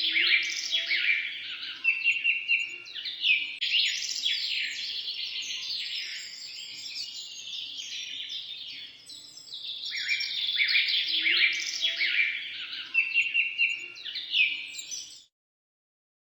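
Many small birds chirping and twittering together in a dense, overlapping chorus of quick high notes, busiest in two stretches with a thinner patch in between. The chorus cuts off suddenly about a second before the end.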